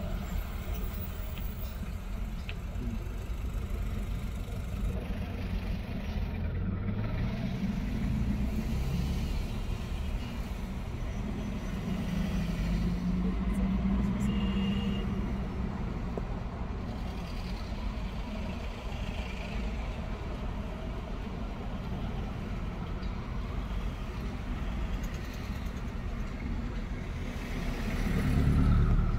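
Slow city traffic: car and truck engines running in a steady low rumble as vehicles creep forward. One engine note rises about a quarter of the way in, and a nearby vehicle grows louder near the end as it pulls away.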